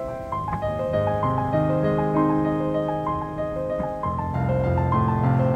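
Piano music: a melody of changing notes over sustained low notes.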